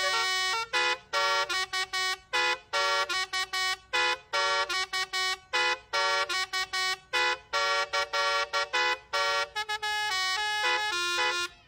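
Bus telolet basuri horn, a multi-trumpet musical horn, playing a tune as a quick run of short notes of changing pitch, with brief gaps between them.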